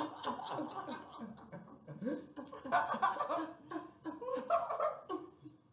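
A person laughing in a run of short chuckles, fading out near the end.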